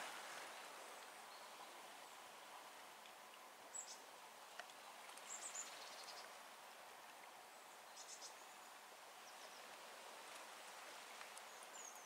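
A small songbird's faint, high chirps, in short bursts a few seconds apart, over a steady hiss.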